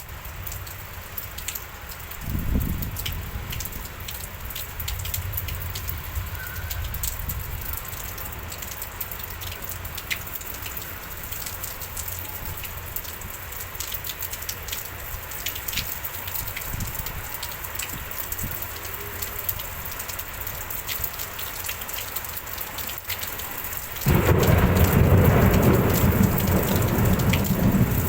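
Rainstorm: steady rain with many drops ticking on a surface. About two seconds in comes a low rumble of thunder. Near the end the sound turns suddenly much louder, a heavy rush of noise.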